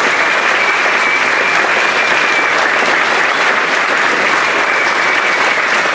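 Large audience applauding steadily. A faint thin high tone runs over the clapping in places.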